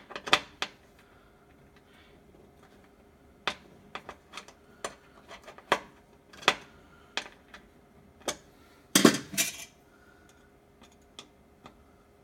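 Scattered sharp metallic clicks and clinks, about a dozen at uneven intervals with the loudest cluster about nine seconds in, from a tool working the bed-leveling screws of a Raise3D N2 Plus 3D printer while the bed's centre point is adjusted.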